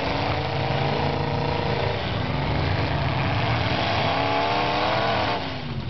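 Several demolition derby cars' engines running and revving in the mud, their pitches rising and falling over one another.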